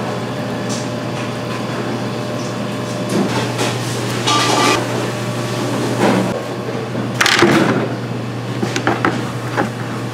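A steady low hum of kitchen equipment, with scattered clatters, taps and rustles from kimchi being handled and laid out in stainless steel trays. The loudest clatter comes a little past the middle.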